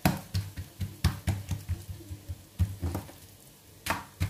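Hands patting and pressing an oiled ball of msemen dough flat on the work surface: a quick run of soft knocks and slaps, which pauses briefly just after the middle and resumes with a sharper knock near the end.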